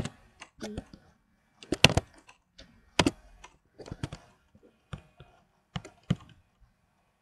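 Computer keyboard keys struck one at a time at an uneven pace, then a couple of mouse clicks a little before the end.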